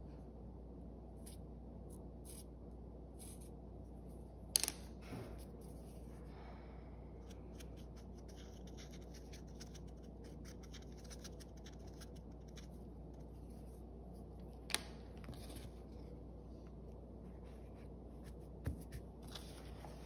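Washable felt-tip marker tip dabbing and scratching on a soft paper towel, a steady patter of small faint ticks as dotted lines are drawn. Three sharp knocks break in, the loudest a few seconds in, another midway and one near the end.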